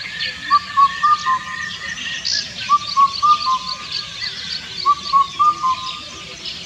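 Indian cuckoo (Cuculus micropterus) singing its four-note whistled phrase, the last note lower, three times about two seconds apart. Other small birds chirp faintly in the background.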